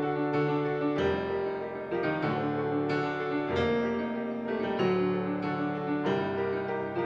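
Piano playing a slow piece in sustained chords, with a new chord struck about every second or so.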